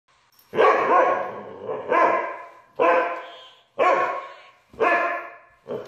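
Husky barking, about six barks roughly a second apart, each starting sharply and trailing off.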